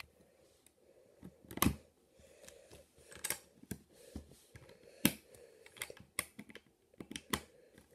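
LEGO bricks and plates being handled and pressed together: irregular sharp plastic clicks, the loudest about one and a half seconds in and again about five seconds in.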